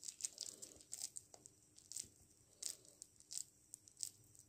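A hand squeezing and mixing thick, coarse banana-flower vada batter in a steel bowl, then pressing a portion into a ball: a faint, uneven run of short, soft wet sounds, several a second.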